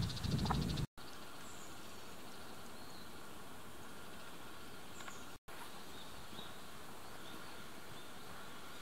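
Outdoor rural ambience: a steady, even hiss with a few faint, short high bird chirps scattered through it. In the first second a louder low rumble and a fast buzzing trill are heard, and the sound drops out completely for an instant twice, about a second in and halfway through.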